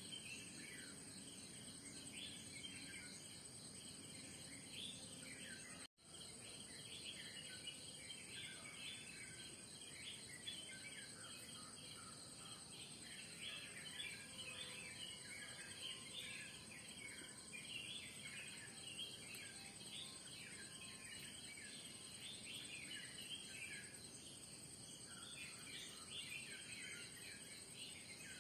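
Many birds chirping in dense, quick short calls over a steady high-pitched insect drone, faint overall. The sound drops out for a split second about six seconds in.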